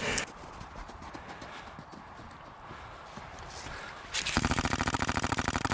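Airsoft rifle firing a long full-auto burst: a fast, even rattle of shots that starts about four seconds in and carries on, after a few seconds of quiet.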